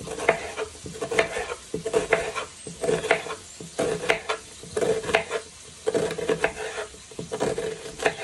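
Chef's knife slicing through an onion on a wooden cutting board, about one cut a second: each cut a quick cluster of crackles ending in a knock on the board.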